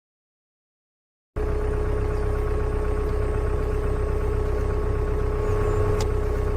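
Silence for about a second and a half, then an engine starts up abruptly and runs steadily, a low, even rumble with a steady whine on top.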